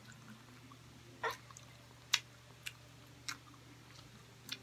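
Quiet eating sounds: about five sharp clicks and smacks spread over a few seconds while grilled skewered meat is eaten and a skewer is dipped into a bowl, over a low steady hum.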